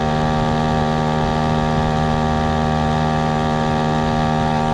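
YADAO 3.5 hp water-cooled two-stroke outboard motor running at a steady throttle under load, pushing a canoe. It holds one constant pitch, with no revving or change.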